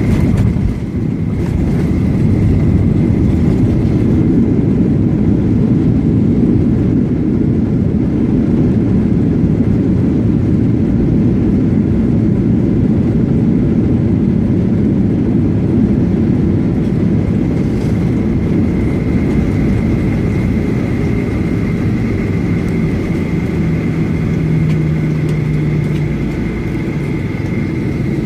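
Cabin noise of a Boeing 737-800 taxiing after landing: a steady, loud low rumble with the high whine of its CFM56 engines at idle, the whine fading and coming back about two-thirds of the way through.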